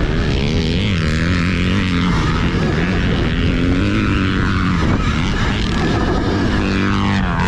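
Dirt bike motors running hard in a motocross race: a loud, steady drone that wavers in pitch and glides down near the end.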